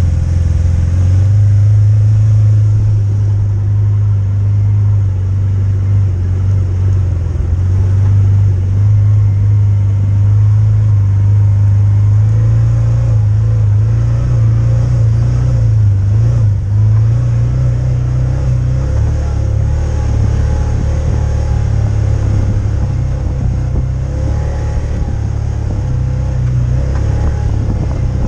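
Side-by-side utility vehicle's engine running steadily while under way, a deep low rumble that eases slightly in the second half.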